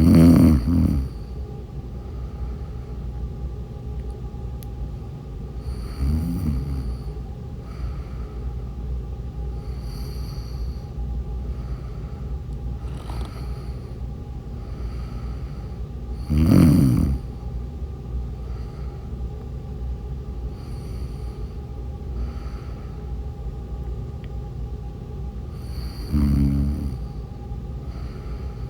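A woman snoring in her sleep, four snores in all: loud ones at the start, about halfway through and near the end, and a softer one about six seconds in, over a steady low hum.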